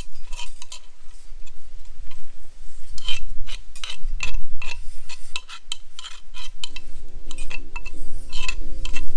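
Utensils clinking and scraping against cookware in irregular strokes, as in stirring or mixing food. About two-thirds of the way in, background music with steady held notes comes in under the clatter.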